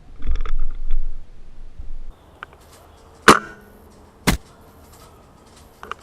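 Rustling of handling and movement, then two sharp airsoft gun shots about a second apart, the first the louder, with a short metallic ring.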